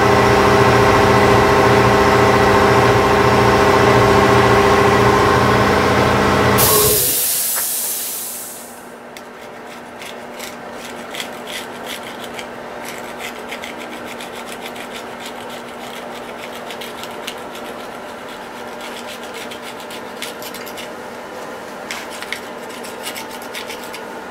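A steady-running machine motor, most likely a shop air compressor, cuts off with a short burst of air hiss about seven seconds in. After that a razor-blade scraper works the deck surface of a cast-iron LQ4 engine block in many short scraping strokes.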